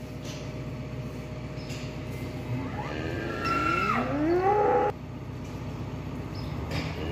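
A single long moo from cattle, starting about three seconds in: the pitch rises, then the call breaks into a higher held tone and cuts off suddenly. A steady low hum runs underneath.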